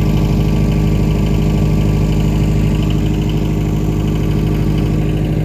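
Generator set's engine running steadily at constant speed, an unbroken hum with an even stack of tones.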